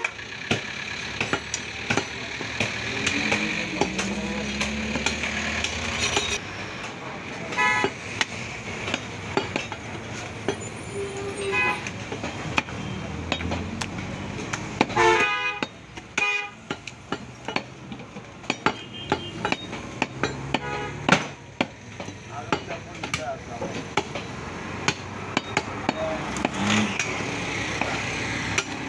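Busy street market: a butcher's knife knocks and taps on a wooden chopping stump over a background of voices and traffic. Vehicle horns toot several times, loudest about halfway through.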